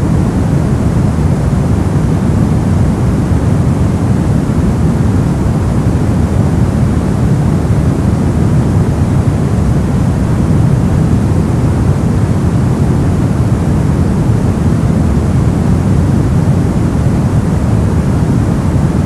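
Brown noise: a steady, deep rushing hiss, strongest in the low range and fading toward the highs, with no changes.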